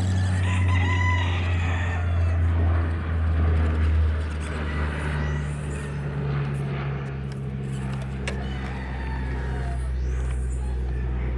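Rooster crowing over a steady low hum; the hum drops in pitch about five seconds in.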